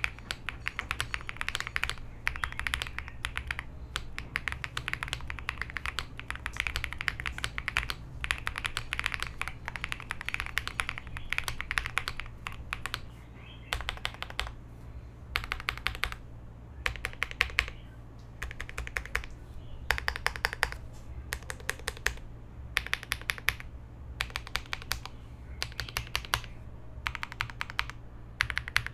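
Typing on an AM Neon 80 mechanical keyboard with Gateron Icy linear switches, FR4 plate, leaf-spring mount and full foam. Steady typing for the first half, then short separate bursts of a few keystrokes each, roughly one burst a second.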